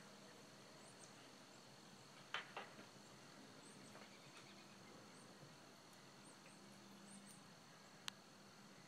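Near silence with a steady, high, thin drone in the background, broken by two soft knocks about two and a half seconds in and a single sharp click near the end, as a wooden boat hull is rolled over in its timber rotating frame.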